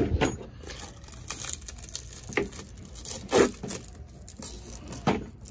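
Thin clear plastic protective film on a new headlight crinkling and rustling in irregular bursts as it is handled and peeled. A single knock at the very start is the loudest sound.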